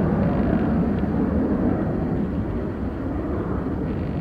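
Boeing 737-800 jet airliner climbing away, its CFM56 turbofan engines a steady rumbling roar that slowly fades as it recedes.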